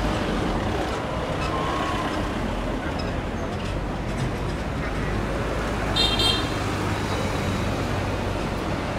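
Street traffic: a steady low rumble of passing vehicles, with one short high-pitched toot about six seconds in.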